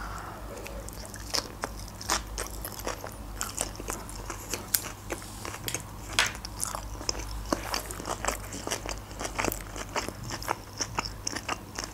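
Close-miked chewing of a mouthful of cucumber-wrapped sushi roll, with many irregular crisp crunches and small mouth clicks.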